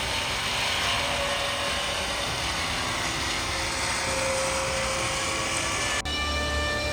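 Steady machine noise. About six seconds in it cuts off abruptly to a different running machine, with a strong low hum and several steady whining tones.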